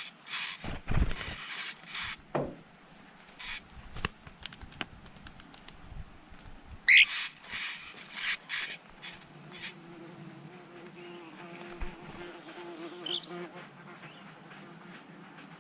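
Eastern Phoebe birds at the nest giving shrill, high-pitched calls in two loud bouts, one at the start and another about seven seconds in, with scattered clicks between.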